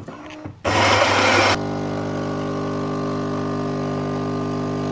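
Philips automatic coffee machine brewing: a short loud rush of noise about a second in, then a steady mechanical hum as coffee pours from the spout into the mug.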